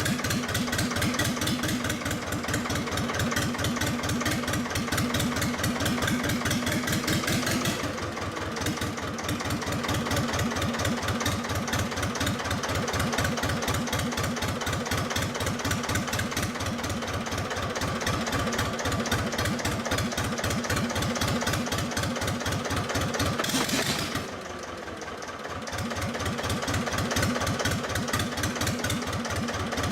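Armstrong Siddeley AS2 two-cylinder air-cooled diesel engine running with a steady, even firing beat. It drops in loudness briefly about a quarter of the way in, and for about two seconds near the end, before coming back to its steady beat.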